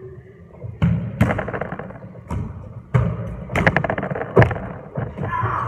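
Players' feet landing and pushing off on a wooden squash-court floor during movement drills: a run of sharp, irregular thuds that echo around the court.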